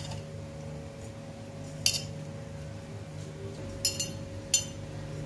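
A hand rubbing crumbly flour-and-semolina mixture with ghee in a stainless steel bowl, with three sharp metallic clinks against the bowl, over a steady low hum.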